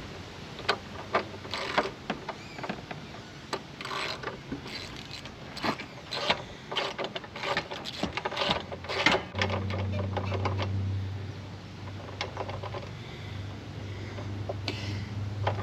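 Ratchet and spark plug socket clicking and clanking against metal, irregular sharp clicks, as a spark plug is worked loose on a riding mower engine. A steady low hum starts about nine seconds in.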